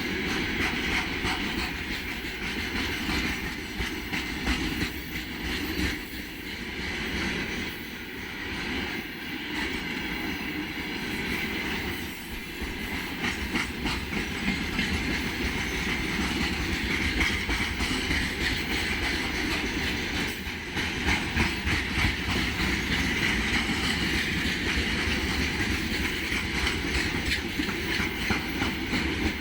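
Freight train rolling past steadily, its wheels clicking over the rail joints with a continuous rolling rumble.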